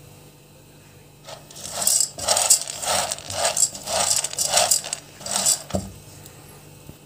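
Dry short tube pasta being stirred in a pan with a spoonful of ghee, browning before the broth goes in. A silicone spatula pushes it around in a quick run of scraping, rattling strokes that starts about a second in and ends with a low knock near six seconds.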